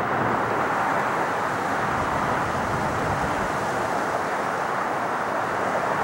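Airbus A380 four-engine jet airliner climbing away after takeoff: a steady, even jet-engine rush.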